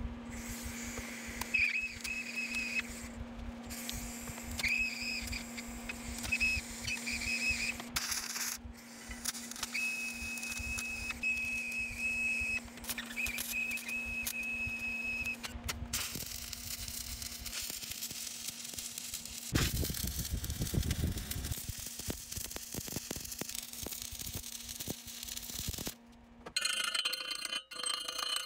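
MIG welder laying short welds joining square steel tube legs to a steel plate: a crackling, sizzling arc in a series of starts and stops over a steady machine hum, then a longer, louder hiss. Near the end, a chipping hammer knocks slag off the fresh welds, with the steel ringing.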